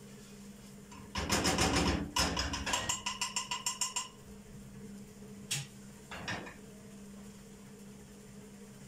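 A silicone spatula stirs fast and clatters against a small frying pan of frying garlic ta'leya for about three seconds, ending in quick repeated strikes. Then come two sharp taps, as the spatula is knocked against the rim of a cooking pot.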